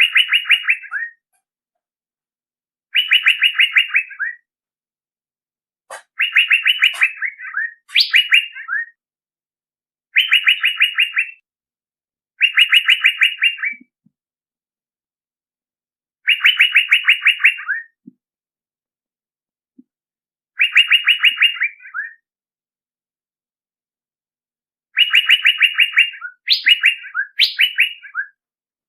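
Male Asian fairy-bluebird (cucak biru) calling: short, rapid trills of about a dozen notes, each around a second long and dropping slightly at the end, repeated every two to four seconds. Some trills are followed by one or two quick upswept notes, twice in a row near the end.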